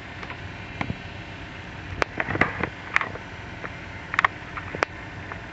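Scattered sharp clicks of computer keys and a mouse, irregular and unevenly spaced, over a steady background hum.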